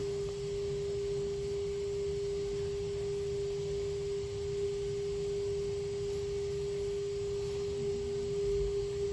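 Kintetsu electric train giving off an unusual noise: a steady pure tone held at one pitch, over a low rumble.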